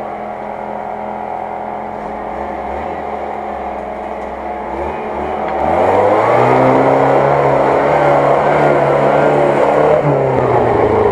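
UAZ-469 off-roader's engine running under load as it climbs a steep muddy slope. Its pitch rises about five seconds in, and it revs loud and steady as the vehicle passes close by.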